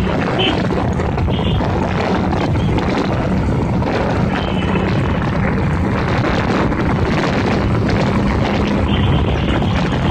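Motorcycle engine running at a steady speed, with wind rushing over a camera mounted on the moving bike. A few brief high chirps cut through now and then.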